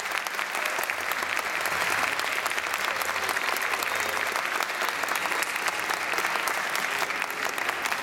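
Steady, dense applause from the audience and the performers on stage clapping.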